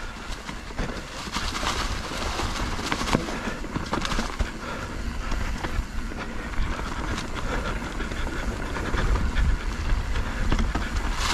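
Mountain bike rolling along a dirt trail: tyres running over the ground, with many small knocks and rattles from the bike, and wind rumbling on the microphone.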